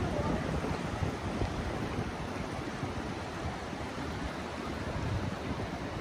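The Potomac River running high and fast after heavy rain from the remnants of Hurricane Ida, a steady rush of flood water swirling below.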